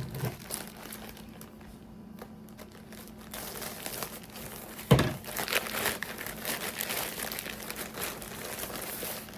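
Packaging crinkling and rustling as a parcel is opened and its contents handled, with one sharp knock about halfway through.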